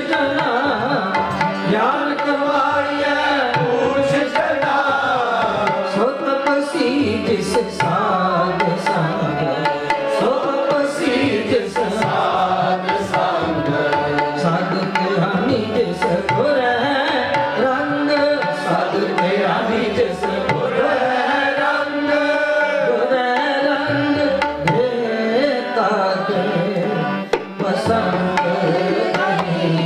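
Sikh keertan: devotional hymn singing with hand-drum accompaniment, a steady beat running under the voice.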